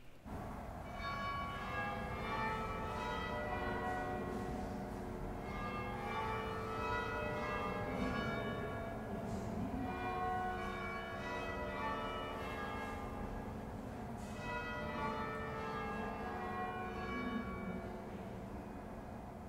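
Church bells ringing, many bell notes sounding one after another and overlapping as they ring on. The ringing starts suddenly right at the start.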